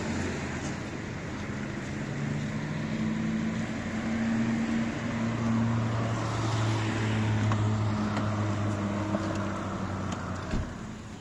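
Motor vehicle engine running with road noise. The engine hum steps down in pitch about halfway through and falls away shortly before the end.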